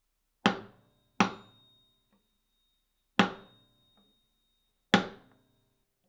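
Hammer striking a steel pin punch four times, driving a gas tube cross pin into an adjustable gas block. Each strike is a sharp metallic tap that rings briefly: the first two come close together near the start, the last two more spaced out, with a thin high ring hanging on after them.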